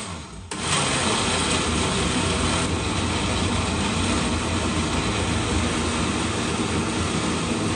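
Glass-jar countertop blender running at speed, puréeing chunks of tomato and red bell pepper with water. The motor stops briefly just after the start, then starts again and runs steadily as the mix turns smooth.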